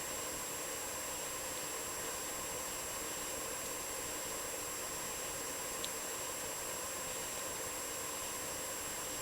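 Steady background hiss with a faint high whine, and one faint click about six seconds in.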